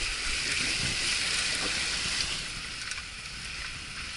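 Steady rush of flowing water from a mountain stream, with a low rumble beneath; it eases slightly about three seconds in.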